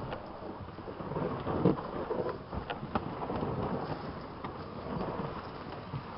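Heavily loaded kayak hull sliding down a steep slope, a rough, rumbling scrape broken by irregular knocks and bumps.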